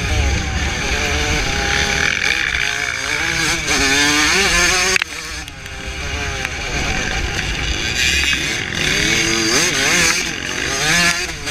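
1982 Suzuki RM125X's single-cylinder two-stroke engine under race load, its revs rising and falling repeatedly and dropping sharply about five seconds in.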